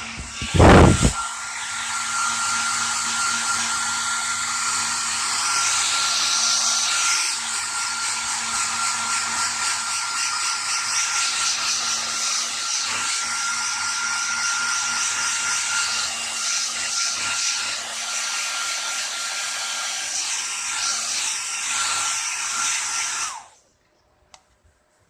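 Hand-held hair dryer blowing on a freshly shampooed dog: a steady whooshing rush with a thin whine, and a loud thump just under a second in. It is switched off near the end, cutting off suddenly.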